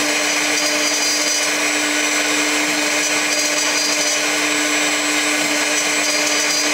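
Small CNC milling machine cutting a metal part with a small end mill, spindle running at a constant speed. A steady hum with a continuous hiss over it.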